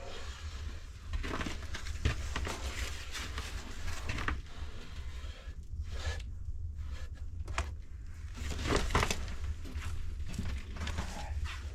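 Wood fire crackling in an open fireplace, with irregular snaps and pops over a steady low rumble.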